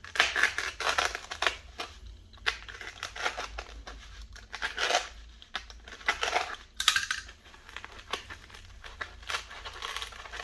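Layered shadow foam being cut and torn out by hand, a run of irregular scratchy rips and crinkles as the cutout is made deeper.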